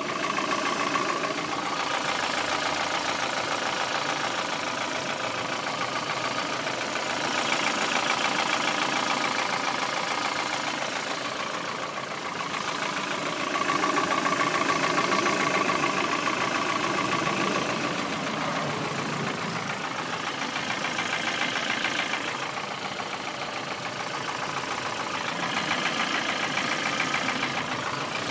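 Lada Priora 1.6-litre 16-valve engine running with a rapid ticking knock, which swells and eases a few times. The knock has not been cured by new hydraulic lifters, and its cause is unknown to the owner.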